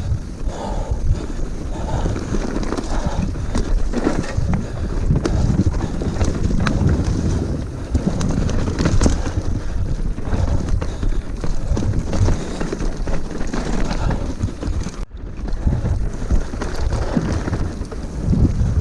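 Wind rushing over an action camera's microphone on a mountain bike ridden down a trail, with tyre noise and frequent rattles and knocks as the bike goes over rough ground. The sound cuts out for an instant about fifteen seconds in.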